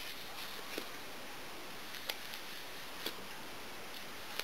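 A few light, sharp clicks about a second apart as the two halves of an Incase Slider hard case for the iPod touch are handled and slid apart, over a faint steady hiss.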